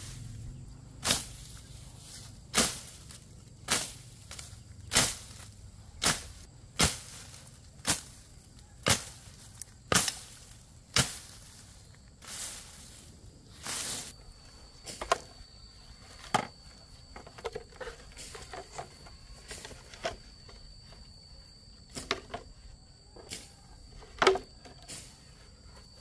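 A series of sharp strikes, evenly spaced at about one a second, then lighter and irregular knocks from about halfway through, when a steady high-pitched tone also comes in.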